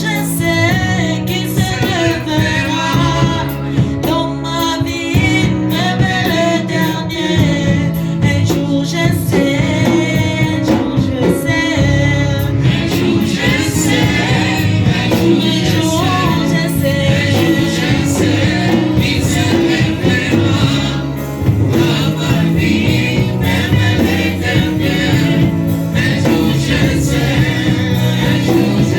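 Gospel worship music: a group of singers, men and women, over a steady band with bass.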